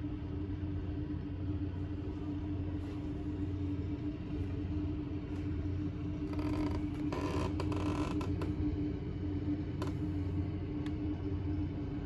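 An engine running steadily: a low hum with a steady tone. About six seconds in, a rougher, brighter noise rises over it for roughly two seconds.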